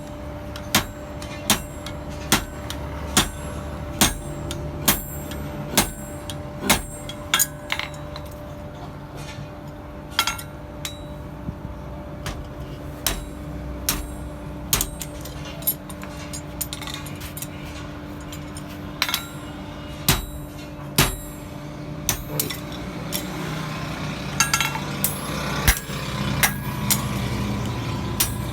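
Hammer blows on steel at an anvil during hand forging: sharp ringing strikes about one a second, thinning out midway and coming faster again near the end, over a steady low hum.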